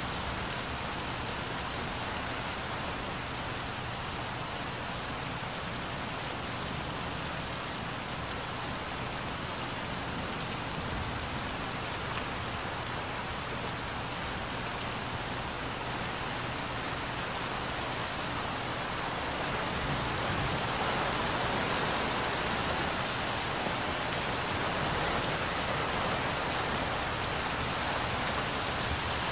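Steady rain falling on a pool's water and its wet paved deck, growing a little heavier about two-thirds of the way through.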